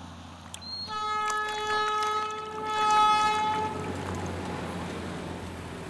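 Horn of the Darjeeling Himalayan Railway's small diesel toy train, one long steady blast of about three seconds starting about a second in.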